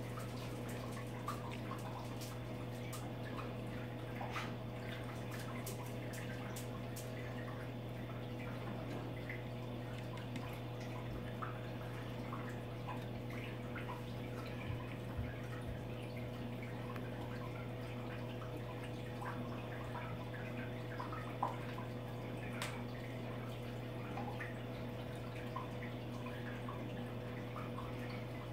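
Aquarium water trickling with scattered small drips and pops, over a steady low hum.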